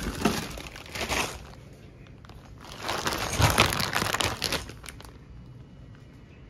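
Clear plastic packaging bag crinkling as a wrapped item is handled and pulled out of the case. The crinkling comes in two spells, through the first second or so and again from about 3 to 5 seconds in.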